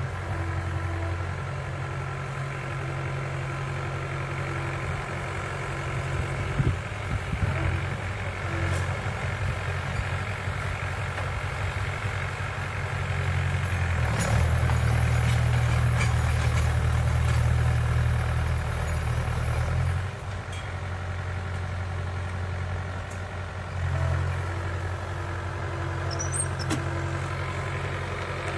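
Mahindra 475 DI tractor's four-cylinder diesel engine running steadily while driving a rotavator through the soil. It grows louder about halfway through, holds for some six seconds, then drops back abruptly.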